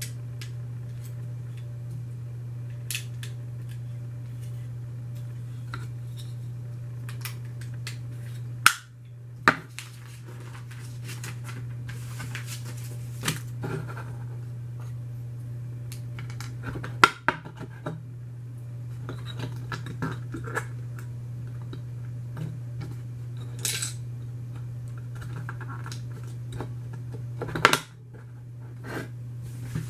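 Plastic Lego pieces clicking and rattling as they are handled and pressed together, with a few sharper, louder clicks scattered through. A steady low hum runs underneath.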